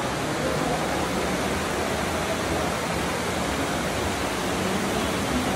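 Water of a stream running through a cave: a steady, even rushing.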